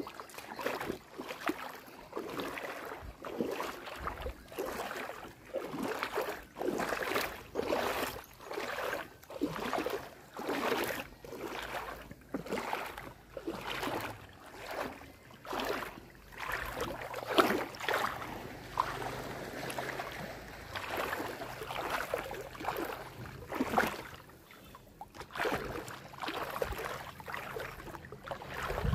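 Small waves lapping and splashing at the shoreline, in short washes about once a second.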